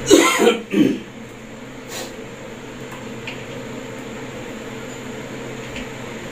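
A short burst of voice at the start, then a steady low hum with a faint hiss from the kitchen: a gas burner is lit under a frying pan of heating olive oil.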